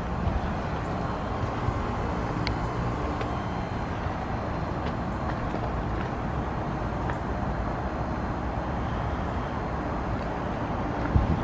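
RunTru heat pump outdoor unit in a defrost cycle, running with a steady rumbling hiss and a few faint ticks, then a louder knock near the end.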